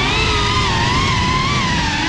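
FPV racing quadcopter's brushless motors and propellers whining, the pitch sliding up and down as the throttle changes during the flight, over a rough rumble of wind and prop wash.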